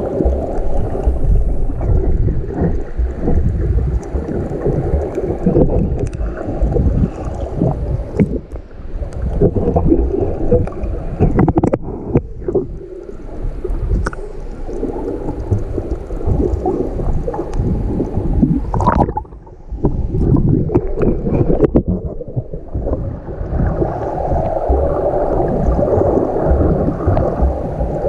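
Muffled water noise picked up by a camera held just below the sea surface while snorkeling: a dense low churning and gurgling of moving water, with scattered clicks and splashes and a brief quieter moment about two-thirds of the way through.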